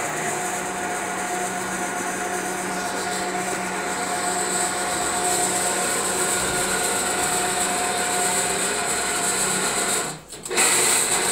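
Single-phase electric mini crane (monkey lift) hoist motor running steadily under load as it lifts a sack load of about 40 bricks up to the roof. The motor cuts out about ten seconds in, then runs again for under a second.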